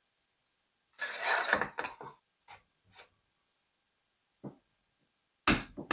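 RockShox Pike Charger damper assembly being fitted into the fork and tightened down with a wrench: a rasping scrape about a second in, a few light clicks, then a sharper click near the end.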